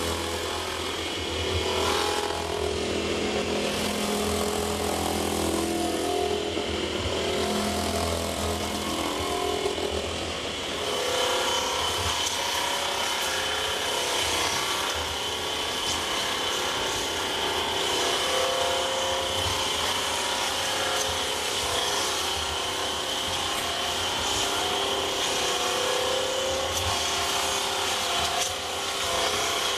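Rotary barrel grinder (cask skiving machine) rasping the inside wall of a wooden cask: continuous rough scraping of wood over a machine hum, with a steady high whine throughout.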